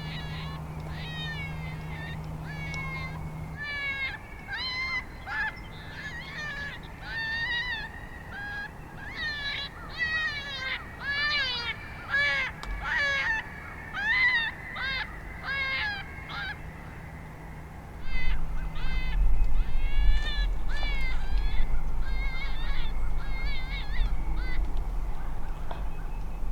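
A chorus of coyotes yipping and howling: dozens of short, high, wavering yips and yodels overlapping, densest in the middle. A low rumble comes in about two-thirds of the way through and is the loudest part.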